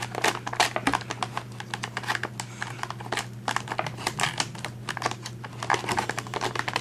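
Clear plastic blister packaging and clear plastic ties crackling with rapid, irregular clicks as they are pulled off a plastic action figure.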